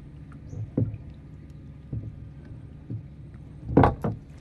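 Water sloshing and splashing as a netted crab trap is hauled up beside a small boat, with a few short splashes and knocks and a louder double splash near the end, over a steady low hum.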